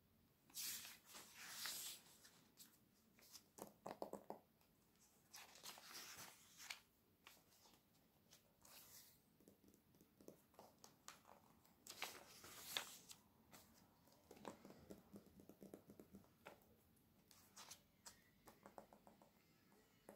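Glossy catalogue pages being handled: a few soft swishing page turns, and between them many light taps and rustles of fingernails and hands on the paper.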